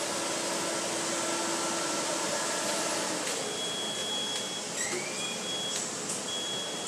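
Fire truck cab being switched on: a high-pitched warning beep sounding on and off from about halfway, over a steady hiss, with a few sharp clicks of switches and the cab door.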